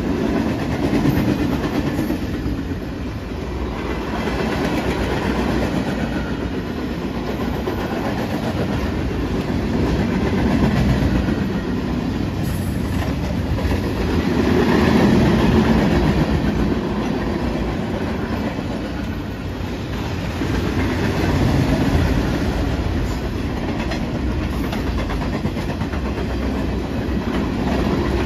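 Freight train flatcars rolling past: steel wheels running on the rails in a continuous low rumble that swells and eases every few seconds.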